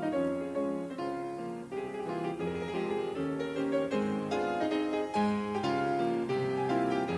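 Background piano music, with several notes sounding together and new notes struck in quick succession.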